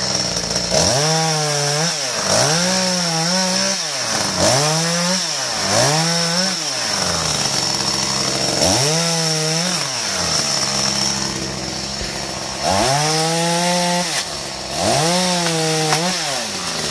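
Oleo-Mac two-stroke chainsaw revving up from idle and dropping back about seven times, each burst a second or so long, as it cuts branches off a spruce.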